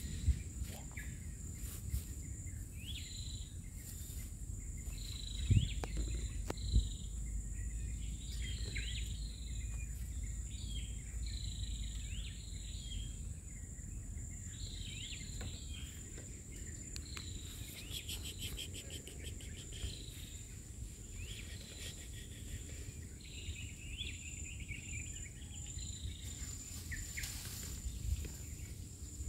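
Tropical forest ambience by a stream: a steady high insect drone, many short bird chirps repeating throughout, and a fast rattling trill about two-thirds of the way through, over a low rumble. Two soft thumps come a few seconds in.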